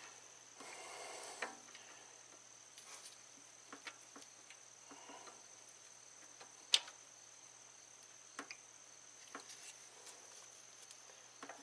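Quiet hand work at the timing chain and cam sprocket of a Toyota Camry engine: scattered light metallic clicks and taps, with one sharper click about two-thirds of the way through. A faint steady high-pitched whine runs underneath.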